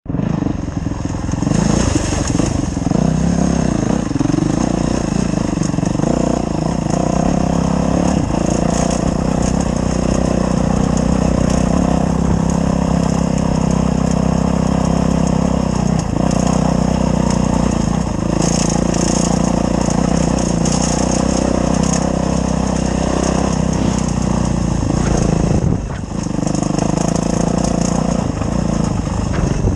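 Dirt bike engine running continuously under load, its revs rising and falling as the throttle opens and closes. The engine note drops briefly about 26 seconds in, then picks up again.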